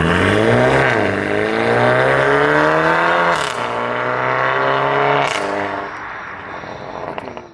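Mercedes A250 (W177) turbocharged four-cylinder accelerating through the gears on a Secretflow full aftermarket exhaust: the pitch climbs, drops at a gear change about a second in, climbs again, and drops with a sharp exhaust fart on the upshift about three and a half seconds in. A second fart comes about five seconds in, after which the sound fades and cuts off abruptly.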